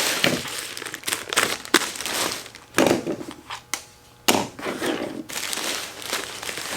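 Cardboard box and plastic packaging of a new computer monitor being unpacked by hand: irregular crinkling and rustling with knocks and scrapes. The rustling drops away for about a second past the middle and resumes with a sharp knock.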